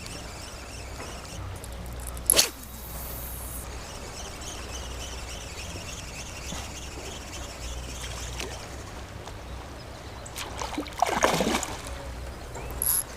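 Shallow seawater trickling and splashing, with a sharp splash about two seconds in and a longer run of splashing near the end.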